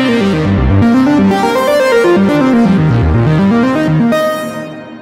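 Cherry Audio Sines software synthesizer playing its 'Oh No Computer' preset: a rapid sequence of short, bright notes whose bass line zigzags down and back up. The sound fades out about four seconds in.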